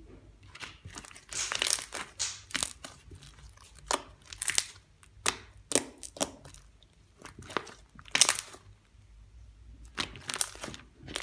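Stretchy, jiggly slime being stretched and squished by hand, giving irregular clusters of crackling with short quiet gaps between.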